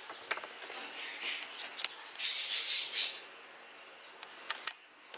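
Handling noise from a clear plastic egg-incubation tub being held and moved: a rubbing rustle about two seconds in, with a few light plastic clicks.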